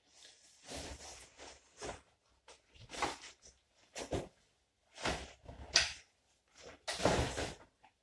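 Rustling and swishing of jacket fabric as layers of winter cycling clothing are pulled off, in irregular bursts of about half a second to a second, the loudest near the end.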